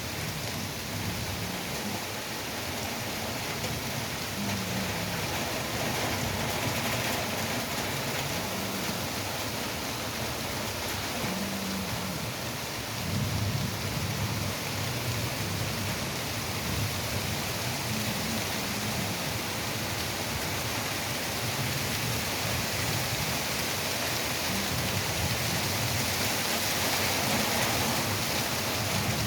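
Heavy rain falling steadily, an even dense hiss of rain on surfaces, with low rumbles coming and going underneath.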